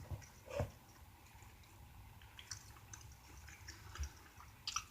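Faint chewing and mouth sounds from eating a bite of egg and weenie burrito: a few scattered soft smacks and clicks over a quiet room.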